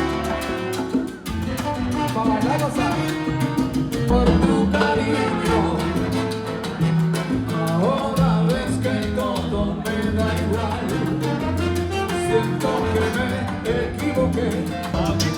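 A live band playing upbeat Latin-style music with a singer, over a steady bass and drum beat.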